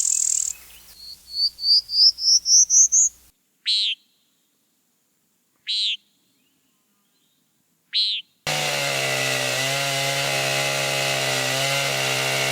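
Example recordings of buzzy sounds played in turn. First a high buzz, then a quick run of about eight short buzzy bird notes climbing in pitch, then three short buzzy bird calls about two seconds apart. From about eight seconds in comes a long, steady, low-pitched buzz.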